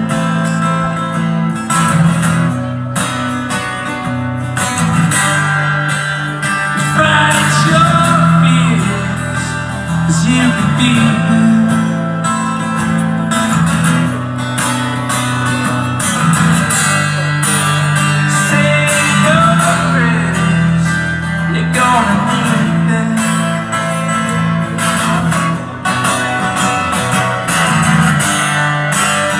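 Live rock band playing: strummed acoustic guitar and drums, with a melody line gliding on top and no words sung.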